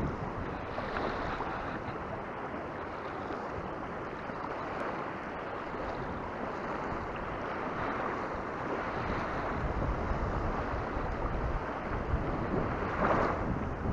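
Small waves lapping and washing over a shallow rocky shore, heard right at the waterline, with wind rumbling on the microphone. The wash swells now and then; the loudest surge comes near the end.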